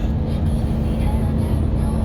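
Steady low road and engine drone inside a moving car's cabin, with a constant hum underneath.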